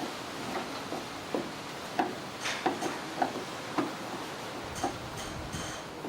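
Irregular light clicks and knocks, roughly one every half second to second, with a short scrape about two and a half seconds in and a quick run of sharper ticks near the end.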